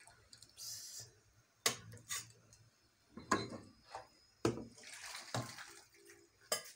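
Fish stew being served from an aluminium sufuria: a metal ladle knocks and clinks against the pot about five times, and the stew splashes as it is poured into a serving dish.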